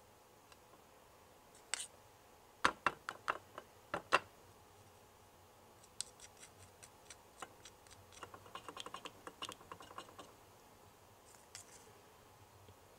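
Small plastic spatula scraping thick batter out of a little plastic cup, with sharp clicks of plastic on plastic about two to four seconds in, then a run of lighter, quick ticks and scrapes.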